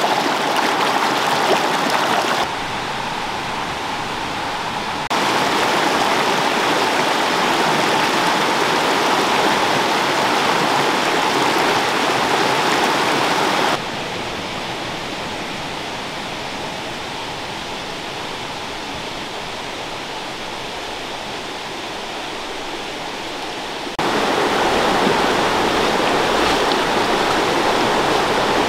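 Rushing water of a shallow rocky stream tumbling over stones, a steady rush that drops and comes back up in level suddenly a few times.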